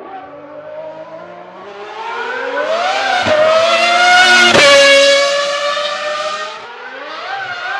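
Ferrari Formula One car at full throttle, its high-pitched engine note climbing with two sharp upshifts about three and four and a half seconds in. It is loudest as it passes, then falls in pitch and fades, and starts rising again near the end.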